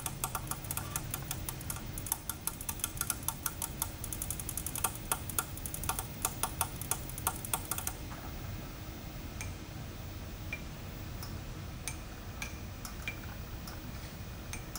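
ProtoTrak K3 CNC knee mill's axis drives moving the table under program control, with the spindle off: a steady low hum with rapid ticking that thins to scattered ticks about halfway through.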